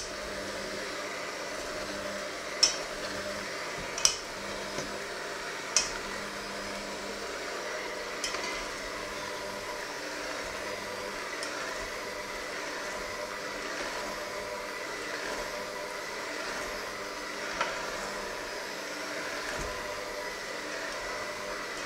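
Electric hand mixer running steadily with its beaters in a thick mixture in a stainless steel bowl. The beaters clink sharply against the bowl several times in the first eight seconds and once more past halfway.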